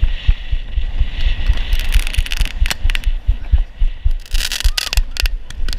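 Handheld fireworks firing: bursts of hissing and sharp cracks over a rapid low thumping.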